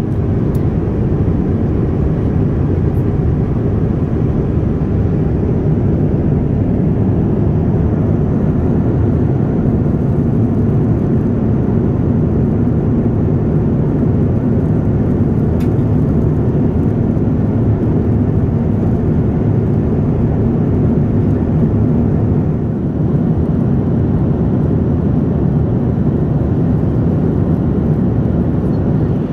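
Steady low cabin rumble inside a Boeing 787-9 airliner in flight: engine and airflow noise running on without a break.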